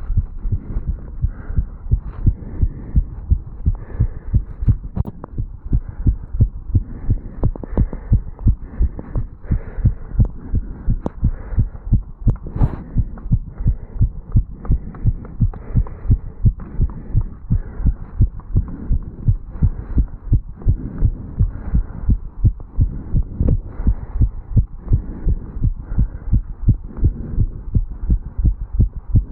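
A human heartbeat picked up at the chest over the mitral valve area after jogging up stairs: a regular lub-dub rhythm of low thuds. A brief noise breaks in about twelve seconds in.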